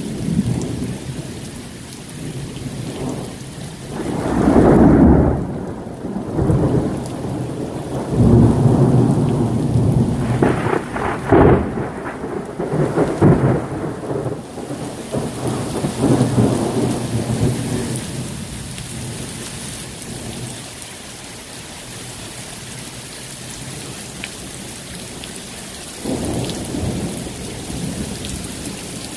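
Thunder rolling in long low rumbles over steady rain. It is loudest from about four to fourteen seconds in, then fades to the hiss of the rain, with a smaller rumble near the end.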